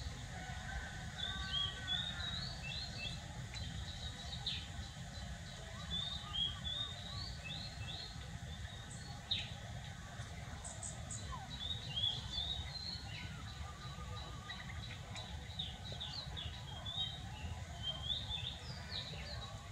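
Small birds chirping repeatedly in short, quick, high notes over a steady low outdoor background rumble.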